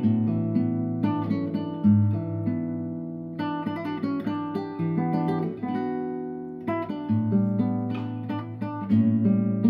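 Background music: an acoustic guitar picking a melody over chords, notes starting sharply and fading.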